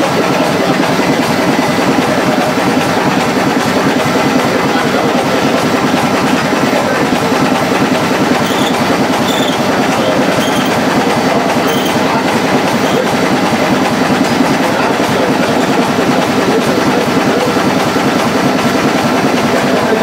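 Antique belt-driven generator and the stationary engine turning it, running steadily at speed with a fast, even mechanical clatter.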